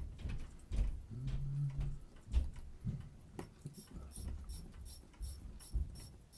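Small metal clicks and light knocks of watchmaker's tools on a Seiko 6139 movement. About halfway in, a regular ratchet clicking starts, about four clicks a second, as the mainspring is wound through its ratchet wheel and click.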